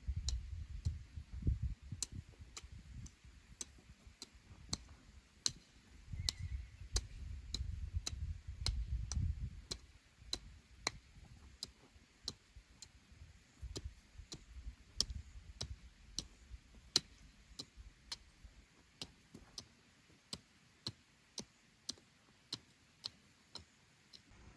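Steady ticking: sharp, evenly spaced clicks about twice a second. A low rumble comes and goes under it for the first ten seconds or so.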